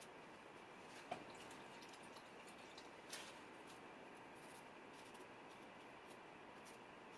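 Near silence in a small room, broken by faint brush-on-palette sounds as oil paint is mixed: a sharp tap about a second in, a soft scrape about three seconds in, and light scattered ticks of the bristles.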